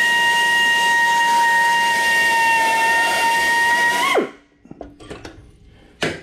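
Electric drill running at speed with a steady high whine, its hand-tightened chuck not gripping so the bit is not cutting. A little past four seconds in the pitch lifts briefly and then falls away as the motor is let off and spins down, followed by a few short knocks near the end.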